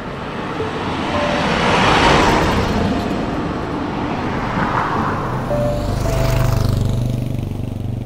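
Cars passing on a wet road: tyre hiss swells to a peak about two seconds in, swells again near five seconds, and the last vehicle passes with a deeper engine rumble before fading.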